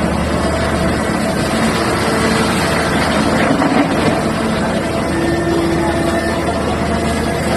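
Liebherr R9800 mining excavator working: a loud, steady heavy diesel drone mixed with hydraulic whining tones that come and go.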